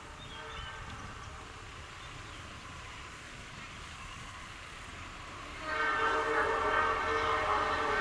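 Train horn sounding over the low rumble of an approaching train: faint chords in the first second, then a loud, steady multi-tone blast starting a little before six seconds in.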